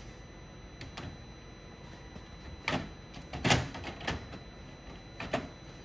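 Hand cutters working at the plastic active grille shutter linkage: a few sharp clicks and cracks of tool on plastic, the loudest about three and a half seconds in.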